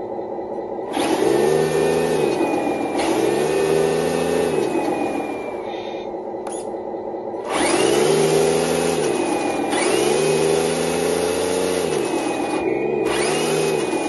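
Simulated diesel truck engine from the RC tractor truck's sound unit, idling and revved up five times as the throttle is worked, the pitch rising and settling back with each rev, with a higher whirring alongside each rev.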